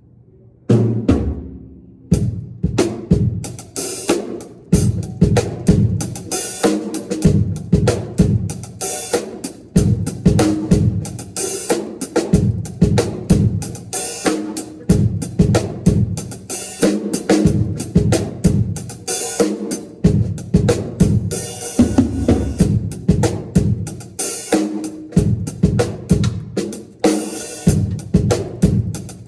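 Drum kit played continuously at a sound check: snare, bass drum, hi-hat and cymbals in a steady, busy groove, starting with a single drum hit under a second in.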